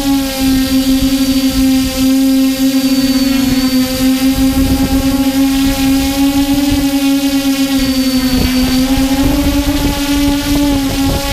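Multirotor drone's motors and propellers hovering, a loud steady buzzing hum with a thin high whine over it, heard from the aircraft's own onboard camera. The pitch wavers with small throttle corrections, sagging about eight seconds in and then rising back.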